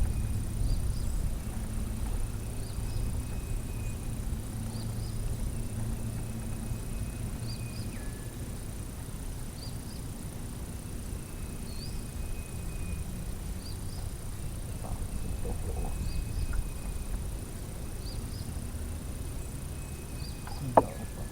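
Outdoor riverside ambience: a steady low rumble and a steady high thin whine under short, high chirps that repeat every second or two, with a sharp click near the end.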